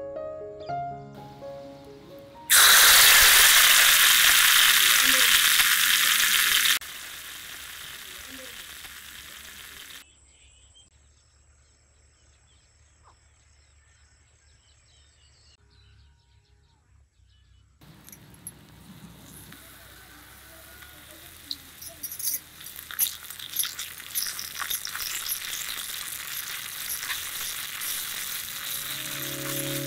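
Ingredients hitting hot sesame oil in a miniature clay pot over a wood fire: loud sizzling about two seconds in that drops off suddenly after about four seconds, then a softer sizzle. After a near-silent stretch, the oil sizzles again and grows louder, with light clicks of stirring as leaves and spices are stirred in.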